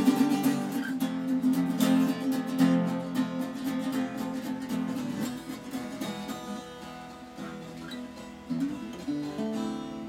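Two acoustic guitars played together, strummed busily at first, then thinning to sparser notes and getting steadily quieter toward the end.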